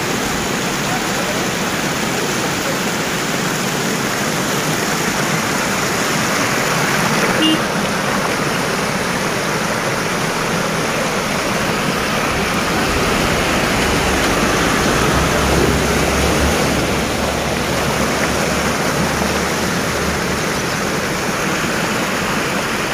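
Floodwater rushing across a road in a steady wash, with trucks driving through it; for several seconds in the middle a Tata goods truck passes close, its engine rumble and the water pushed off its front growing louder, then fading.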